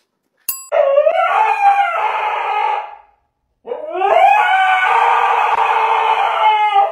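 Husky howling twice: two long howls, each rising at the start and then held, the second one longer.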